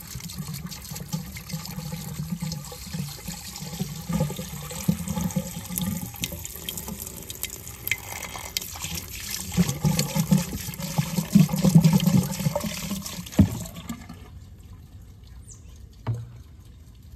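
Pool antifreeze being poured from a plastic gallon jug into a pool skimmer's throat, the liquid splashing down into the skimmer, stopping about thirteen and a half seconds in with a knock; a single thump near the end.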